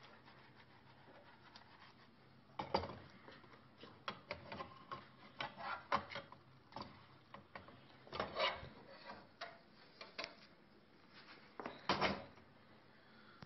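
Metal slotted spatula scraping and knocking against a frying pan as it is worked under a crêpe, in irregular strokes from about three seconds in, with a louder clatter near the end.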